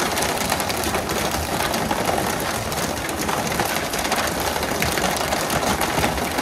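A fishing boat's engine running steadily under a continuous rushing noise.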